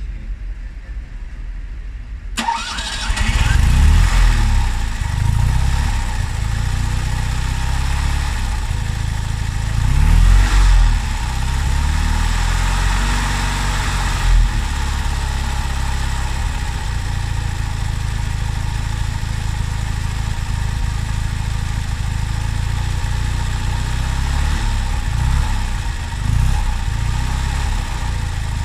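Fiat 126 Bis's 700 cc two-cylinder engine starting from cold: it catches suddenly about two seconds in and settles into a steady idle, the engine speed rising briefly a few times.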